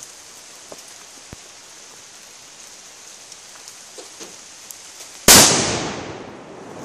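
A salute-type firecracker goes off with a single loud bang about five seconds in, the sound dying away over a second and a half or so.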